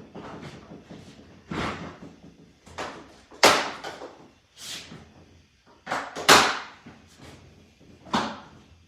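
Ridgid Pro modular toolbox being lifted and set down onto the stack of boxes: a series of hard plastic clacks and thumps, the loudest about three and a half and six seconds in.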